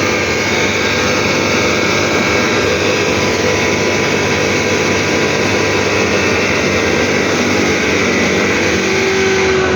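Heavy road-repair machinery running steadily while crushing up the road surface: a loud engine drone with a steady high whine over it.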